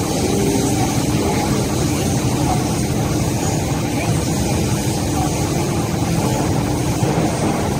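Steady rumble of an MTR M-train heard from inside the passenger car as it runs, with wheel and running-gear noise and a faint steady hum.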